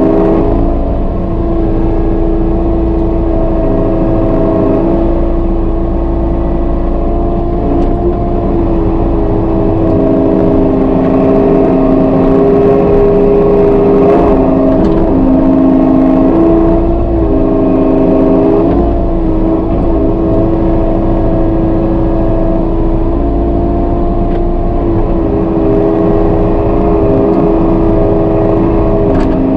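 Kubota KX080-3 excavator's diesel engine running under working load while the bucket digs, heard from inside the cab. It is a steady hum whose tones shift every few seconds as the boom and bucket are worked.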